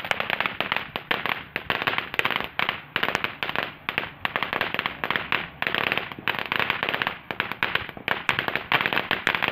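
Ground fountain firework crackling: a dense stream of rapid snapping pops that comes in waves and starts suddenly.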